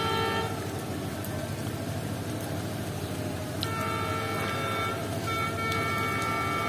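Diesel locomotive horn sounding on an approaching train: a chord-like blast that ends about half a second in, then two long blasts of a little over a second each, the second one starting about five seconds in. Steady rain hiss runs underneath.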